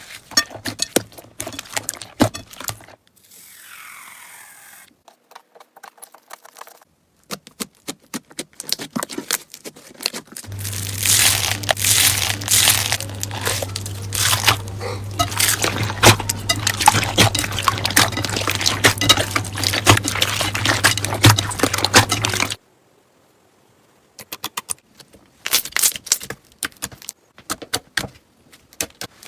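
Slime being squeezed, poked and stretched by hand, giving rapid crackling and popping clicks. The crackling grows dense and loud about ten seconds in, with a low steady hum beneath it, then cuts off sharply; scattered clicks follow after a short pause.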